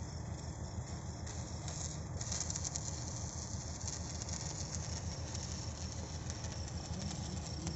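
Electric arc welding on steel reinforcement bars, with a steady crackling hiss that starts about two seconds in. A steady low engine drone runs underneath.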